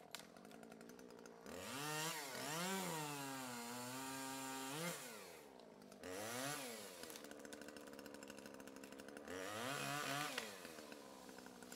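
Small two-stroke chainsaw engine revving up and falling back several times, holding steady between revs.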